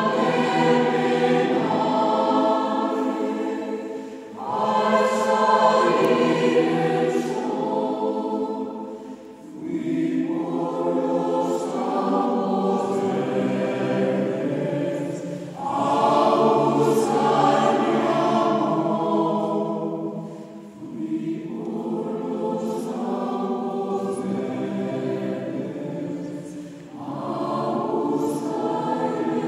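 A choir singing a Spanish Renaissance part-song in several voice parts, in phrases of about five seconds with short breaks between them.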